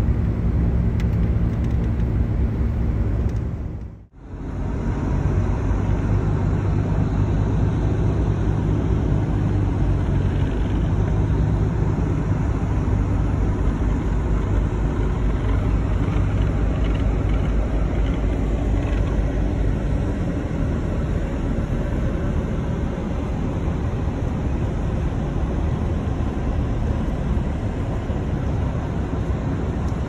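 Tour motor coach driving, heard from inside the cabin: a steady low engine and road rumble. It drops out briefly about four seconds in.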